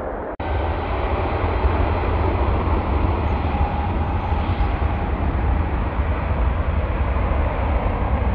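Jet engines of a United Airlines Boeing 767 on final approach with gear down, a steady deep rumble. A brief dropout near the start marks a cut from the previous clip.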